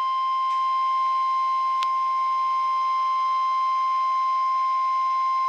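Weather Radio Canada's 1050 Hz warning alarm tone: one steady, unbroken high tone sounding over the radio receiver. It is the alert that precedes a tornado warning broadcast.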